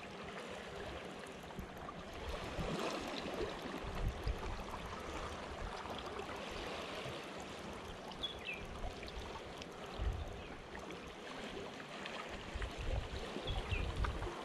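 Water washing and lapping against shoreline rocks, a steady hiss. Low gusts of wind buffet the microphone now and then.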